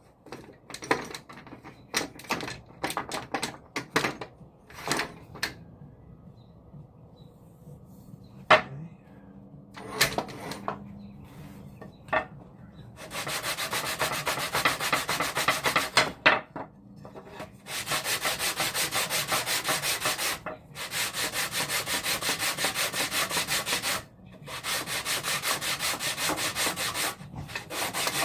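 Wooden parts clicking and knocking as they are handled and test-fitted, then a piece of poplar being sanded by hand in quick, even back-and-forth strokes, in several long runs with short pauses, to bring it down to size for a snug fit.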